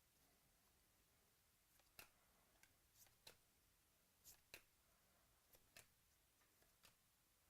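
Near silence with faint, scattered clicks as trading cards are handled and flipped.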